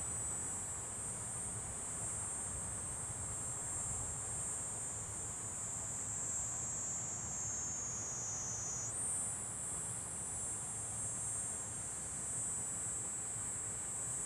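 Steady high-pitched insect buzzing that sags a little in pitch and jumps back up about nine seconds in, over a faint low rumble from the Cessna Citation CJ2+ business jet rolling along the runway.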